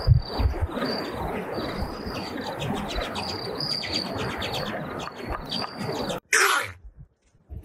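High, thin bird chirps repeat over a steady outdoor rushing noise. About six seconds in, this stops short, and a single short, loud, noisy burst follows.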